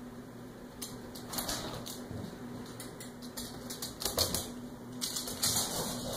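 Claws and paws clicking and skittering on a hard wooden floor as a puppy and a cat run about. The taps are irregular and become busier and louder about four seconds in.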